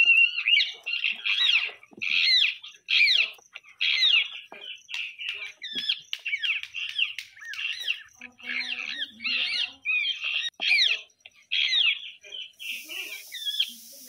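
A group of rose-ringed parakeets calling, a rapid, nearly continuous string of short, high calls, each sweeping quickly up and down in pitch.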